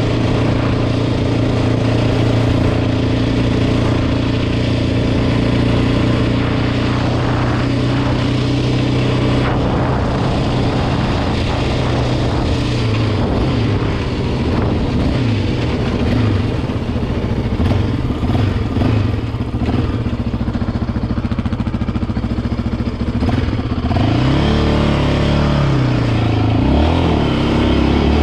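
Yamaha Raptor 700 ATV's single-cylinder engine running under way: a steady cruising note for the first dozen seconds, then its pitch rises and falls with changes of throttle, with rising and falling revs again from about 24 seconds in. Tyre noise from the gravel road runs underneath.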